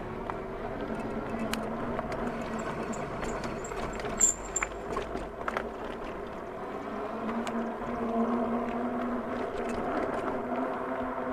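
Tires of a Jansno X50 electric bike running on the road with a steady whine whose pitch drifts up and down with speed. The whine comes from the tires, the noise that is meant to go with the coming tire swap. A sharp click about four seconds in.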